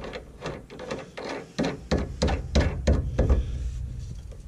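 Steel nut being run onto the anti-roll bar's end-link bolt by hand, with the parts clicking and knocking together: about a dozen irregular clicks, loudest in the middle.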